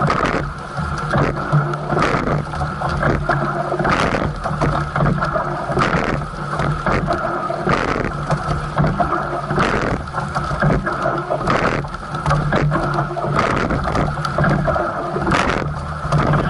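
Coxless four rowing shell under way at race pace: water rushing along the hull and wind on the microphone, with a steady low hum underneath. A sharp clunk from the oars in their oarlocks comes at each stroke, about every two seconds.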